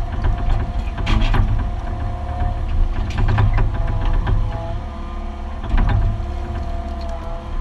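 Mini excavator heard from inside its cab, digging a trench: the diesel engine runs steadily with a hydraulic whine that shifts in pitch as the boom and bucket move. Clusters of clanks and scrapes from the bucket and linkage come about a second in, around three seconds in, and near six seconds in.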